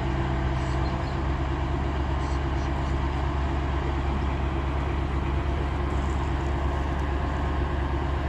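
Heavy engine running steadily at constant speed: a deep, even drone with a low hum throughout.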